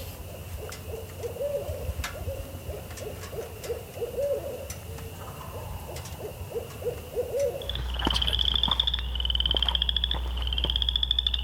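An owl hooting in a long series of low, rising-and-falling hoots. About eight seconds in it gives way to a frog chorus: rapid, high-pitched pulsing trills over a steady low hum.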